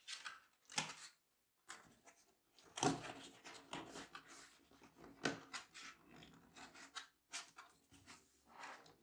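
Cardboard and paper being handled: rustling and scraping, with a few dull knocks as a lid is fitted onto a kraft cardboard box. The loudest knocks come about three and five seconds in.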